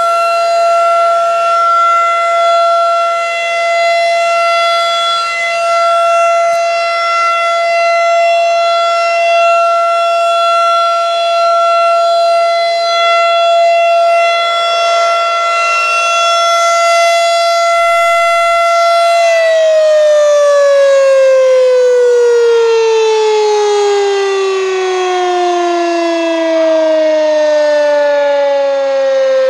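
Federal Signal 2001 electromechanical tornado siren sounding its steady tone during a routine test, then winding down about two-thirds of the way through, its pitch falling slowly and steadily as the rotor coasts to a stop.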